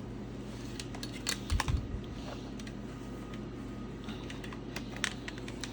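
Irregular light clicks and taps of plastic vacuum parts being handled, with a couple of dull knocks about one and a half seconds in, over a steady low hum.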